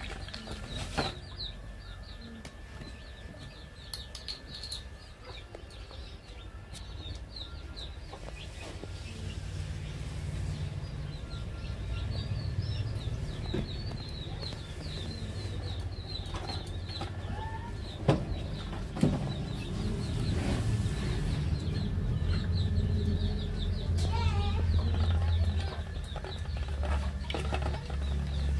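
Small birds chirping over and over in the background, with a few lower calls. A low steady rumble builds from about a third of the way in, and a few sharp knocks sound in the second half.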